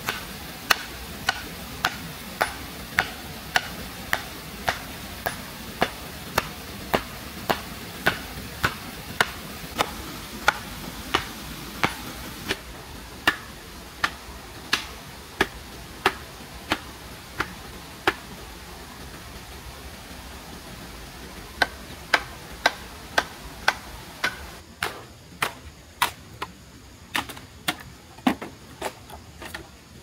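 Sharp, rhythmic knocks of repeated tool blows, about one and a half a second. They stop for about three seconds past the middle, then resume a little quicker and less evenly.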